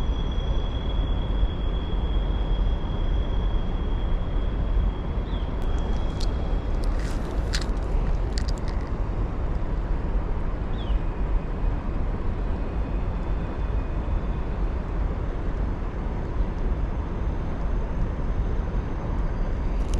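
Steady rushing of river water over rapids. A faint high steady tone runs for the first few seconds, and a few light clicks come about six to nine seconds in.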